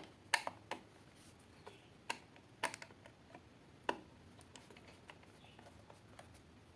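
A screwdriver unscrewing the screws of a wall socket: scattered light clicks and taps at irregular intervals, the strongest about two and four seconds in.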